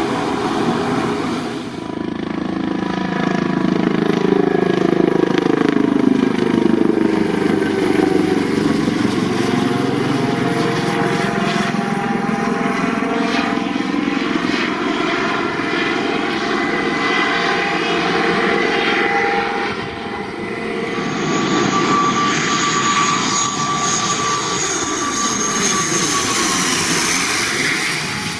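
ATR twin-turboprop airliner engines running at high power with a passing sweep, then a helicopter's rotor and turbines passing overhead midway. Near the end an ATR turboprop passes low overhead on landing approach, its engines giving a steady high whine.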